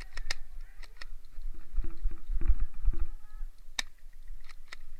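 Scattered sharp cracks of airsoft gunfire, the loudest about four seconds in. Midway there is a low rumble with a steady hum and a few quick pulses.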